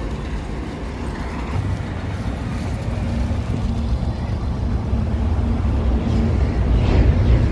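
Highway road traffic passing close by: vehicle engines and tyres rumbling, growing louder toward the end as vehicles approach.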